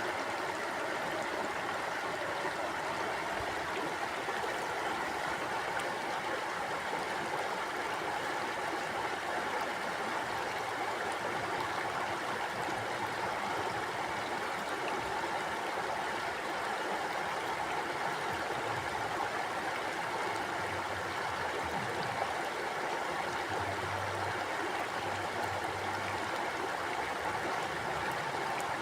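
Mountain stream flowing over rocks: a steady, even rush of water with no breaks.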